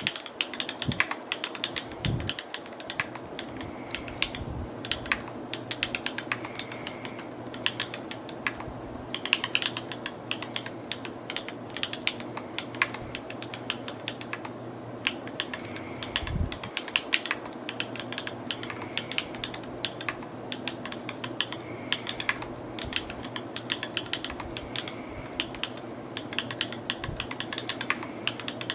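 Continuous fast typing on an S&R Magnus175 mechanical keyboard: a dense, unbroken run of keystroke clacks, with a couple of deeper thumps, over a steady low hum.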